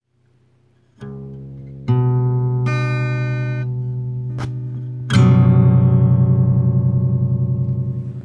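A plucked string instrument sounding a few notes that ring on and slowly fade: a first note about a second in, louder ones near 2 s, and a strong wavering one about 5 s in. The sound cuts off sharply at the end.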